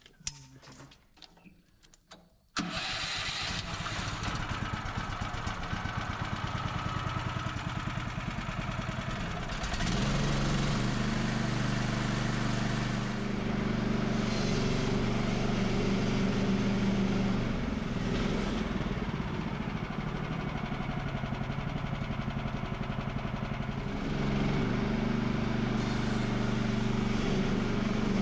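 Portable sawmill's gasoline engine starting abruptly about two and a half seconds in and then running steadily. About ten seconds in it runs up louder and stays there, and it rises again near the end.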